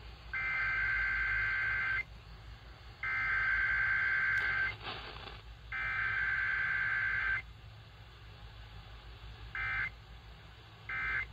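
Emergency Alert System SAME digital header: three identical bursts of shrill two-tone data warble, each about a second and a half long with a pause between. These are followed by two short bursts of the same warble near the end, the end-of-message codes.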